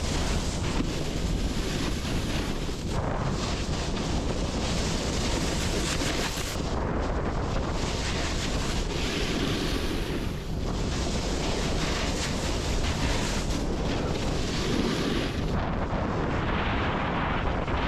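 Wind buffeting the microphone: a steady rushing noise that swells and eases every few seconds.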